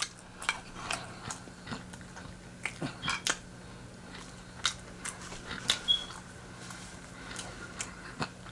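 A person biting and chewing crispy fried chicken close to the microphone: scattered crunches and wet mouth clicks over a faint steady low hum.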